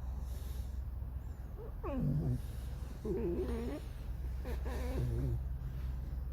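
Pet fox making creaky, whining calls: a falling call about two seconds in, then two wavering, warbling calls around three and five seconds.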